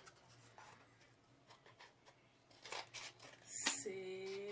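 Scissors cutting through a cardboard toilet-paper roll, a few short snips. A woman's voice begins near the end.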